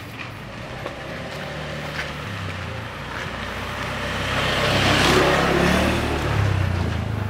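A small motor scooter engine comes toward the listener and passes close by, growing louder to a peak about five seconds in and then easing off.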